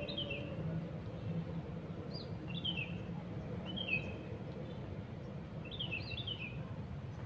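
Small birds chirping: short falling chirps in four small groups a second or two apart, over a steady low background rumble.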